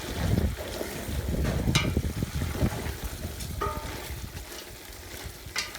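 Cooking sounds from a pot of chicken on a charcoal fire being stirred, with a spoon clinking against the pot twice. There is uneven low rumbling for the first few seconds, then it settles quieter.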